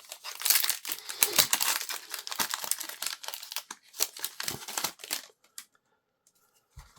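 Foil wrapper of a Pokémon TCG booster pack crinkling and tearing as it is opened: a dense run of crackles for about five seconds, then only a few soft clicks.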